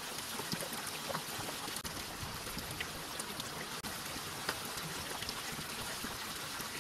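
Small rocky mountain stream fed by a spring, water trickling steadily over stones, with scattered small splashes.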